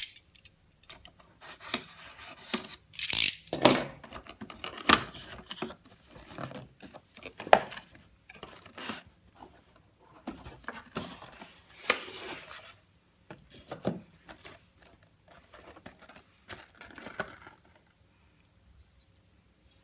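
Product packaging being opened and handled by hand: irregular rustling, rubbing and tearing with sharp clicks, stopping a couple of seconds before the end.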